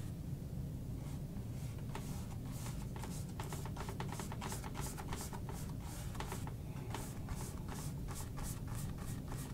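Paintbrush scrubbing oil paint onto canvas in quick, short strokes, several a second, over a steady low hum.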